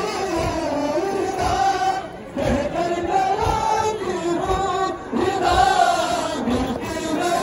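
Noha, a Shia mourning lament, chanted by voices in unison through loudspeakers, with a regular low thump about twice a second from the mourners beating their chests (matam).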